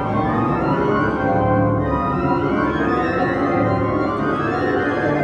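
Newly installed church pipe organ played from its console: sustained chords over changing bass notes. The pipes are not yet tuned or voiced.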